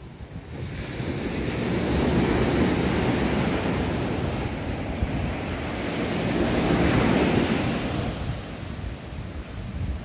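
Sea waves breaking and washing up the beach, two surges swelling and dying away, with wind buffeting the microphone.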